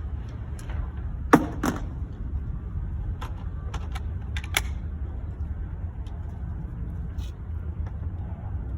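A handful of sharp clicks and knocks, the loudest two close together about a second and a half in and a few lighter ones around three to four and a half seconds, over a steady low rumble.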